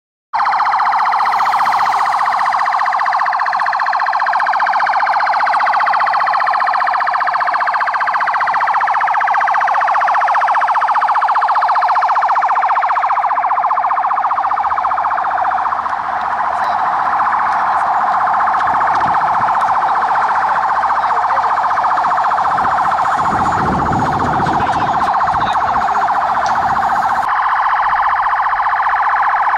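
Several police vehicle sirens wailing together, their rising and falling tones overlapping. They start abruptly and keep on steadily.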